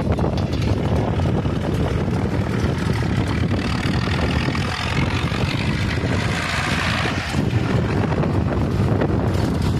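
Zetor tractor's diesel engine running steadily as it tows a rotary hay tedder, passing close by in the second half.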